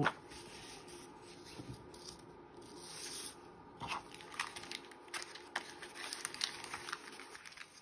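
Paper being trimmed and handled: small scattered snips, taps and rustles, with a brief soft swish about three seconds in.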